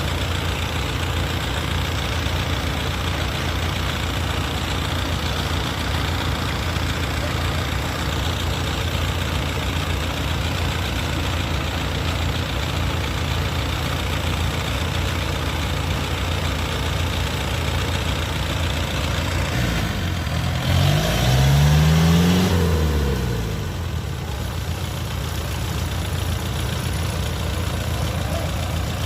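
Diesel engine of rice-harvesting machinery running at a steady, even pace, revving up and back down once about two-thirds of the way through.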